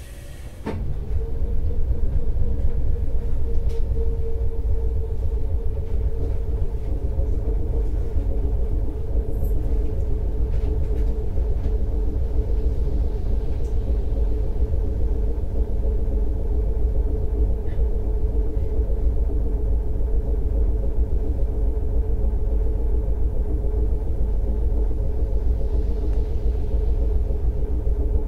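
Hakodate City Tram 8000-series streetcar heard from inside the car: the sound swells about a second in as it gets under way, then runs steadily. There is a low rumble of wheels on rail and a steady humming tone from the drive.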